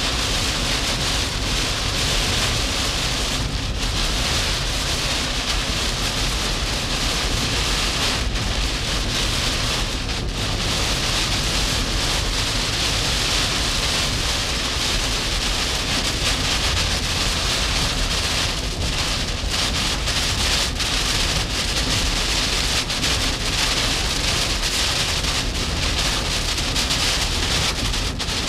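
Heavy tropical-storm rain and wind pelting a moving vehicle's windshield, heard from inside as a steady loud hiss with a low rumble underneath.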